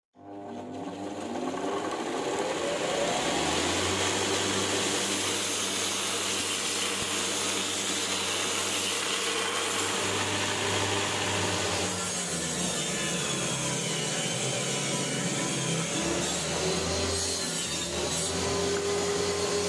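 Homemade belt grinder's electric motor spinning up with a rising whine over the first few seconds, then running steadily while the abrasive belt grinds metal. The tone of the machine noise changes about two-thirds of the way through.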